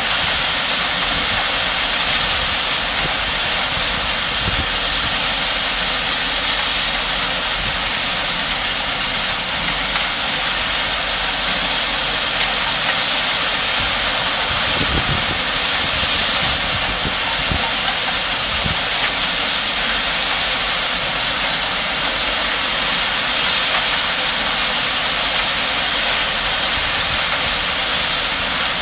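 A loaded three-axle dump truck running while its bed tips up, crushed stone pouring off the back in a steady, even hiss.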